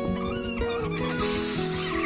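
Background music with held notes that change about every half second.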